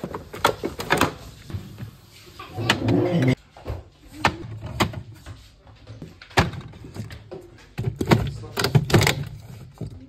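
Groceries being put into a fridge: cartons, bottles and plastic tubs knocking and clicking against the shelves and door racks, a dozen or so separate knocks, with a short rustle of packaging about three seconds in.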